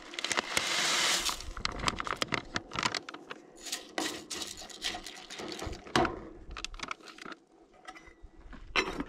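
Dried shredded potatoes poured from a packet into a stainless steel mug, a rustling hiss lasting about a second. Then a knife stirs and scrapes among the shreds in the mug: a run of sharp clicks and scrapes of metal on metal.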